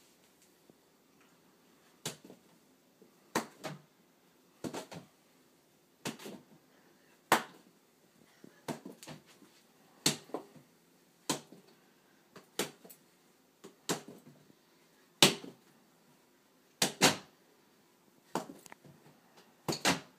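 A belt lashed repeatedly against the wall and its light switch: sharp slapping cracks about every second or so, some in quick pairs.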